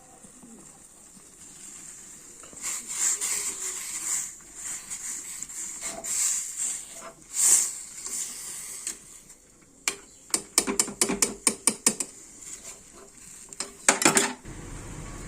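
Some scraping and rustling in a metal bowl, then a gas stove's igniter clicking rapidly, about five clicks a second, in two runs. After the second run the burner catches with a low, steady rush.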